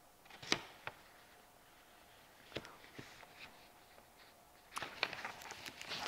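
Cigars and their wrapping being handled by hand: a few light clicks and taps, then from near the end a run of small crackles as the wrapper crinkles.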